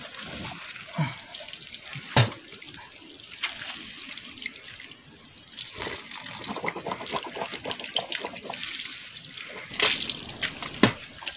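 Running water splashing in cupped hands as a man washes his face and hands, with uneven splashes and drips. A few sharp knocks stand out, the loudest about two seconds in and another near the end.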